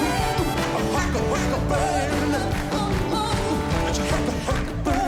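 Rock and roll song performed live, with a band playing and a sung vocal line over it.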